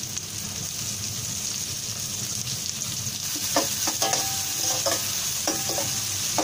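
Sliced onions sizzling steadily in hot oil in an enamel-coated kadai. From about three and a half seconds in, a slotted metal spatula scrapes and clinks against the pan several times as the onions are stirred.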